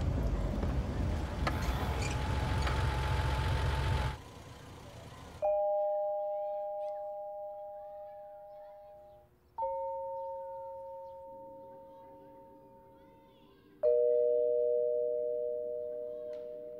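Steady car noise for about four seconds, which cuts off. Then three bell-like chords, each two notes struck together, sound about four seconds apart, each ringing on and slowly fading.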